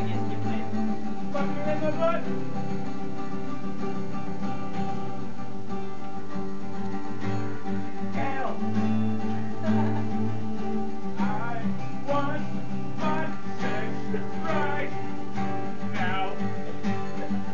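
Acoustic guitar playing sustained chords, with a higher wavering melody line coming in and out over them from about halfway through.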